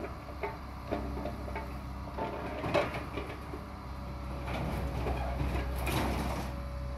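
Scrap-yard material handler with an orange-peel grapple: its engine gives a steady low drone while scrap metal knocks and clanks in the grapple and the trailer. The loudest clank comes a little under three seconds in, and a denser clatter with a steady tone follows in the second half.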